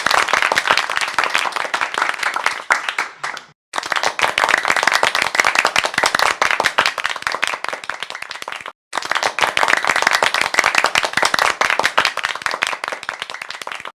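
Applause: many hands clapping fast and densely, cutting out abruptly twice for an instant before starting again, and tailing off slightly near the end.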